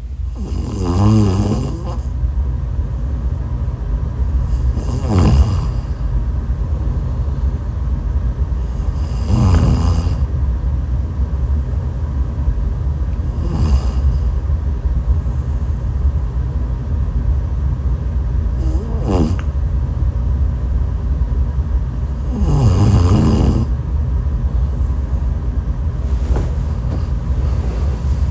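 A person snoring, about seven buzzing snores at roughly four-second intervals, over a steady low rumble.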